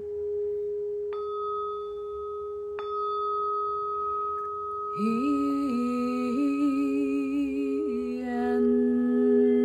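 Singing bowls ringing with a steady sustained tone; a fresh strike about a second in and another near three seconds adds a higher ring over it. From about halfway, a voice hums a few long, wavering wordless notes over the ringing.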